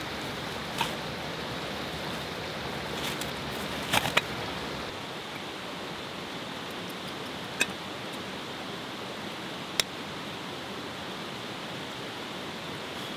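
Small woodland stream tumbling over rocks in a steady rush. A few sharp clicks of camp cooking gear being handled cut through it: one about a second in, a quick pair around four seconds, and two more later.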